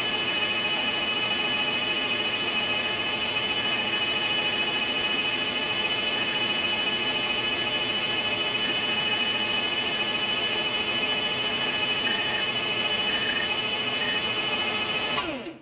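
A machine running steadily with a high, even whine made of many tones, strongest a high one. It stops suddenly near the end.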